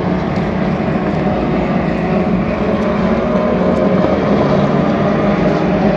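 Race car engines running on the circuit, heard as a steady, unbroken drone.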